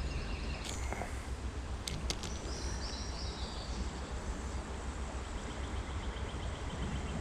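Outdoor ambience of insects chirping in pulsed trills over a steady low rumble, with a few sharp clicks about one and two seconds in.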